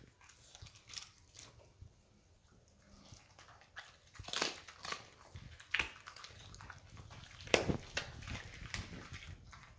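Siberian husky chewing a piece of raw chicken: wet chewing broken by several sharp crunches, the loudest about three-quarters of the way through.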